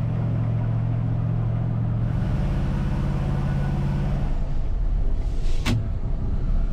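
MAN Kat 4x4 truck's diesel engine running steadily under way, a low drone heard from inside the cab, its note shifting twice. One sharp click about five and a half seconds in.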